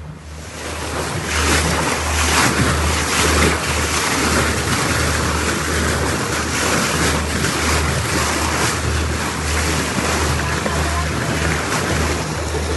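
Wind buffeting the microphone and water rushing and splashing along the hull of a small motorboat underway, in a steady loud rush with irregular low gusts. It swells about a second in.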